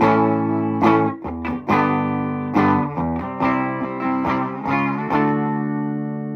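Electric guitar played through the Gourd Tech Flum Dilly distortion and boost pedal: a run of struck chords, some cut short, then a last chord left ringing near the end.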